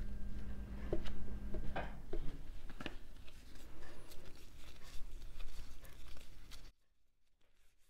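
A plastic dough scraper clicking and scraping on a silicone mat as it cuts dough, then disposable gloves rustling as hands roll a piece of dough into a ball, over a steady low hum that cuts off suddenly near the end.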